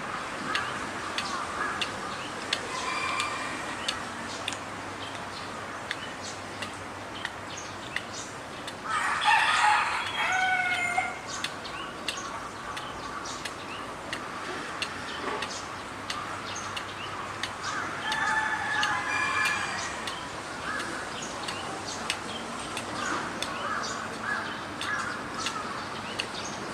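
Capybara's teeth clicking and scraping on the metal enclosure fence as it gnaws, a run of sharp irregular clicks. A loud call with falling tones sounds in the background about nine seconds in, and a fainter one around eighteen seconds.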